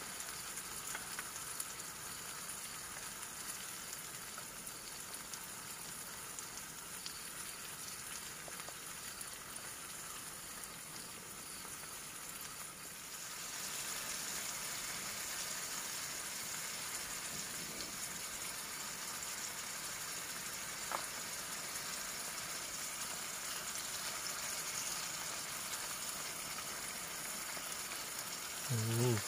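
Tempe frying in a small camping pot on a portable gas stove: a steady sizzle that grows a little louder about halfway through.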